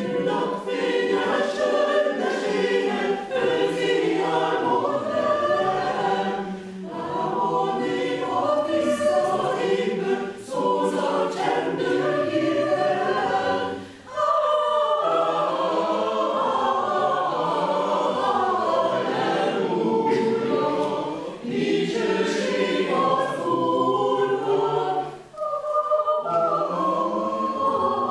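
Mixed choir of men's and women's voices singing a Christmas song. The choir comes in all together at once, and its phrases are broken by several short breaths.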